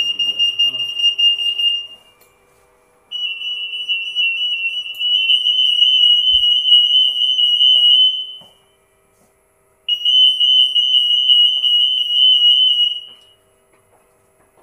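RF 8.2 MHz EAS anti-theft gate alarm sounding a high, rapidly pulsing beep tone in three bursts of a few seconds each, the sign that a security tag was detected between the gate antennas.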